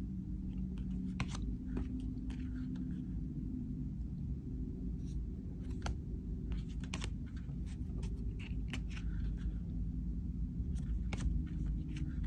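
Printed tarot cards being handled and flipped: a series of light clicks and snaps of card stock against card stock and the table, over a low steady hum.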